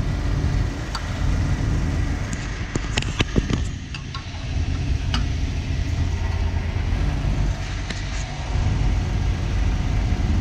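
Steady low engine rumble, like an engine idling, with a quick cluster of sharp clicks about three seconds in and single clicks around one, five and eight seconds in, while a motorbike is being refuelled.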